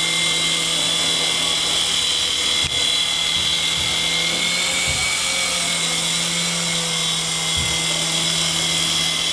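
Syma S109G mini coaxial RC helicopter in flight close by: a steady high-pitched whine from its small brushed electric motors and spinning coaxial rotors.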